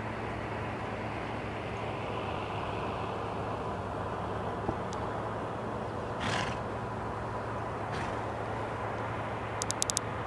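Steady outdoor background rumble and hiss with a constant low hum, a short hissing burst about six seconds in, and a quick run of four clicks near the end.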